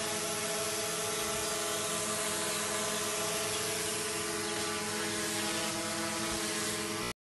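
DJI Mavic Pro quadcopter's propellers buzzing steadily, an even multi-tone hum over a strong hiss. The sound cuts out abruptly near the end.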